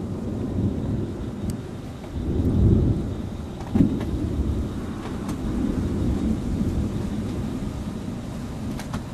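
Thunder rolling: a deep rumble swells about two and a half seconds in, a sharper crack comes near four seconds, then a long rumble slowly fades.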